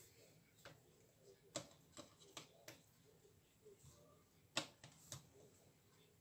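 Near silence with a few faint, scattered clicks and taps from hands setting tomato slices onto a pita in a frying pan; the sharpest click comes about four and a half seconds in.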